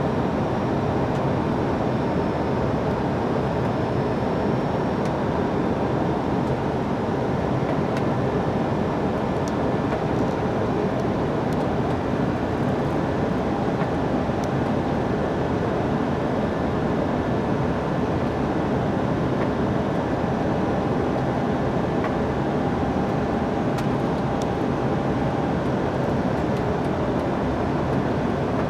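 Steady rushing flight-deck noise of an Airbus A321 on final approach, unchanging throughout.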